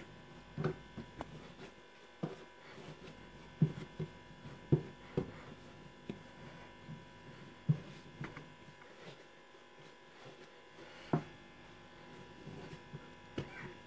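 Dough being kneaded by hand on a floured mat: irregular soft thumps as it is pressed and pushed, one every second or two, over a faint steady hum.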